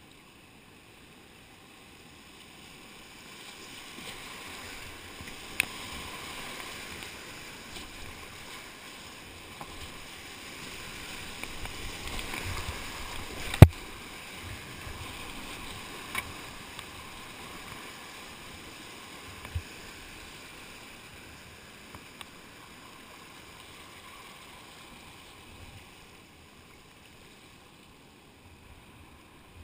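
Whitewater rapids rushing around a kayak, with splashing paddle strokes; the water noise builds from about three seconds in and eases off in the second half. Near the middle comes one sharp knock, much louder than anything else, with a few lighter knocks scattered around it.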